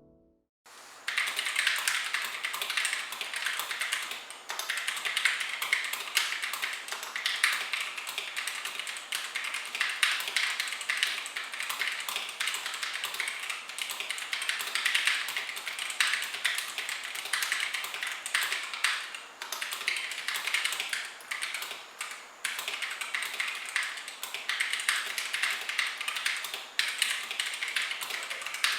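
Fast, continuous typing on a mechanical keyboard, an HK Gaming GK61 rebuilt with aftermarket KBD Fans parts, the keystrokes clacking in quick runs with short pauses. The typing starts about a second in.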